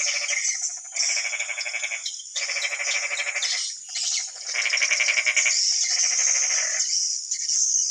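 Swiftlet lure-call recording: constant high twittering of swiftlets overlaid with rattling, frog-like croaks that come in repeated bursts about a second long. It is the 'frog' style of call played to attract swiftlets to nest.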